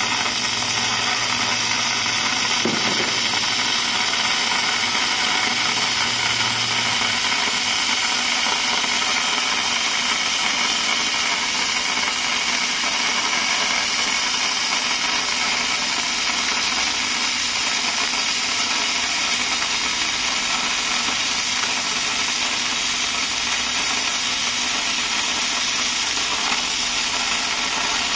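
20 kW IPG fiber laser cutting 50 mm mild steel with oxygen assist gas: a steady hiss of the gas jet and burning steel. A low hum underneath stops about seven seconds in.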